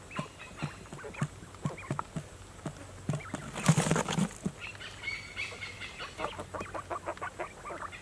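Quail pecking with scattered light taps, then a burst of wing-flapping and scuffling about four seconds in as birds drop through a cardboard trapdoor into a pit trap, followed by rapid chirping and calling.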